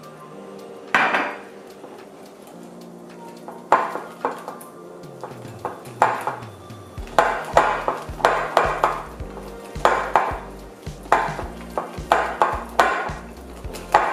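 Wire balloon whisk beating flour into thick batter in a glass bowl, its wires knocking against the glass in sharp strokes: a few spaced knocks at first, then about two a second from about halfway through.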